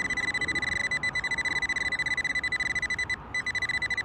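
A metal-detecting pinpointer, the Nokta AccuPoint, beeping rapidly and evenly at one high pitch, with a short break a little past three seconds in before it starts again. Beeping this fast means the probe is right at the buried metal target.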